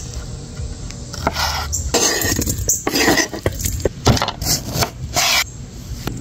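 Kitchen knife cutting raw shrimp and limes on a wooden cutting board: a run of short, separate slicing strokes through the middle, each a brief scrape ending against the board.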